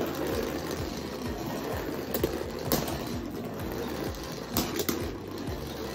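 Two Beyblade X spinning tops whirring as they spin across the stadium floor, with several sharp clicks as they collide, over background music.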